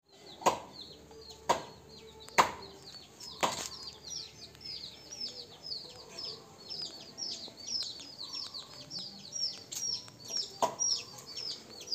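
Chicken chicks peeping continuously in a rapid run of high, falling peeps. Four sharp clicks come about a second apart in the first few seconds, with one more near the end, and these are the loudest sounds.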